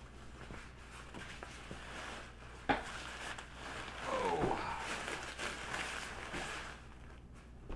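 Rustling and rubbing of a heavy battle rope's nylon protective sleeve and its nylon carry bag as the coiled rope is lifted and re-coiled by hand, with one sharp knock nearly three seconds in and a brief sound falling in pitch about four seconds in.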